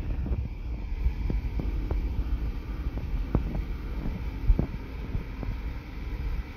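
Wind buffeting a phone microphone as a steady low rumble, with scattered light knocks every second or so.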